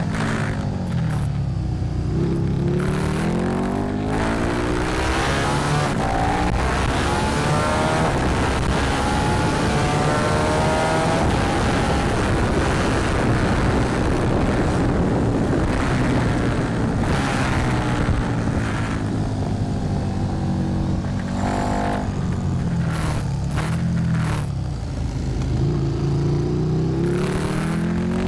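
KTM 1290 Super Duke R's V-twin engine heard on board at track speed, with heavy wind and road rush. The revs climb in long rising sweeps under acceleration and drop away twice, once near the start and once about three-quarters of the way through.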